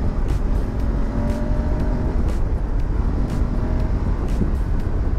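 Wind rushing and rumbling over the rider at highway speed on a BMW F850 GS Adventure, behind a raised windshield extender, with the bike's 853 cc parallel-twin engine humming steadily under it as it gathers speed.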